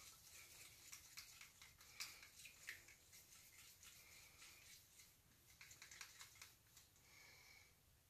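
Very faint scattered clicks and taps: a plastic paint cup's lid being taken off and the acrylic paint stirred by hand with a wooden stick.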